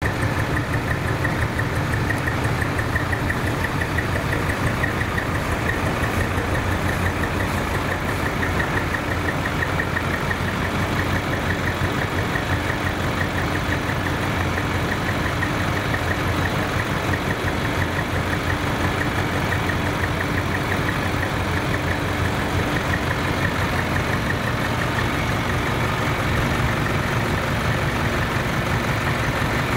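Truck engine idling steadily, a continuous low chugging with no change in speed.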